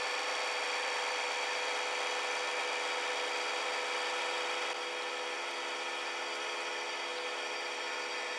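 Hydraulic press running with a steady hum and whine while its ram moves. The sound drops slightly in level about five seconds in.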